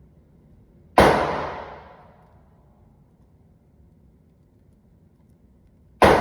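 Two single gunshots about five seconds apart, one about a second in and one near the end, each followed by about a second of echoing decay.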